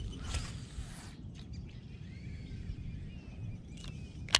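Faint bird chirps over outdoor ambience, with a short rushing noise at the start. About four seconds in there is a single sharp knock as the fishing rod is handled.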